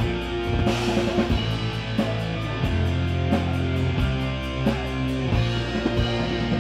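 Pagan black metal band playing live at full volume: distorted guitars and bass holding long notes over drums, with a steady cymbal beat.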